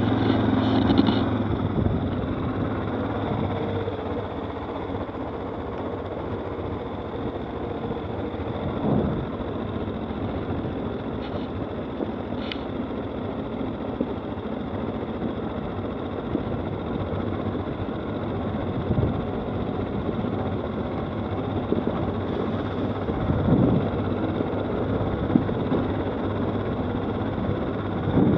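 Stels 800D ATV engine running steadily on the move, with a couple of brief louder knocks, one about a third of the way in and one later on.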